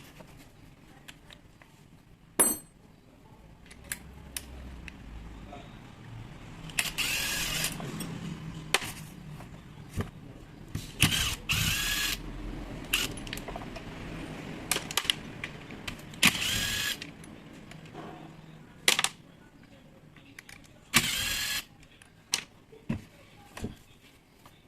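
Workbench disassembly sounds: scattered clicks and knocks of metal parts and tools being handled. Several short bursts of about a second each from a small electric motor, the pitch bending within each burst, like a power screwdriver driving screws.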